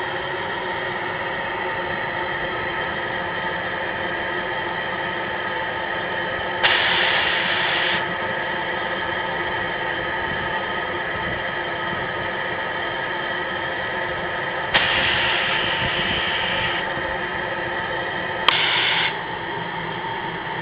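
Small live-steam locomotives hissing steadily as they stand under steam. Three louder gushes of steam come through: a long one about a third of the way in, another past the middle, and a short one near the end that opens with a sharp click.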